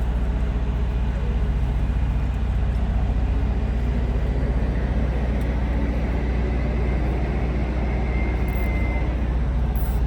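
Steady low rumble of an idling engine, even throughout, with a faint thin whistle coming in about halfway through.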